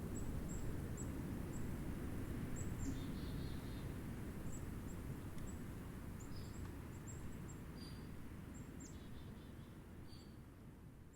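Black-capped chickadees calling: many short, thin, high notes, with two quick runs of buzzier 'dee' notes, about three seconds in and again near nine seconds. Under them runs a steady low rumble of snowstorm wind, and everything fades down toward the end.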